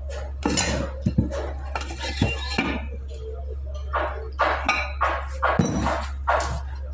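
Metal tools and parts clinking and clattering irregularly as they are handled during brake booster repair work, over a steady low hum.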